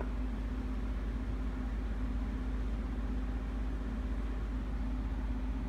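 A steady low electrical hum with a faint hiss over it, unchanging and without clicks or crackle.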